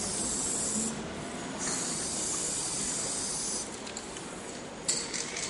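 Aerosol spray-paint can hissing in three bursts as paint is sprayed onto a wall, with short pauses between them. A sharp knock sounds shortly before the last burst, which is the loudest moment.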